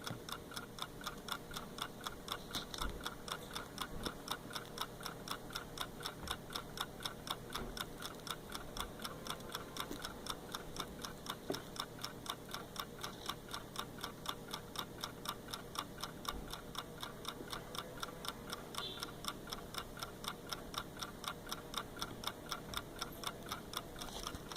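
Hand-wound mechanical clock movement ticking, its clockwork running. Fast, even ticks.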